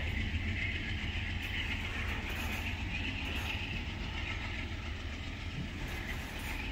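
Freight train of container flatcars loaded with trash containers rolling past, a steady rumble of steel wheels on the rails with a hiss above it.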